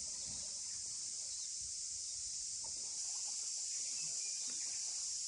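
A steady, high-pitched chorus of cicadas, an unbroken shrill drone.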